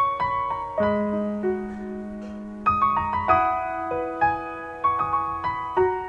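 Background piano music: a slow melody of struck notes that ring on and fade.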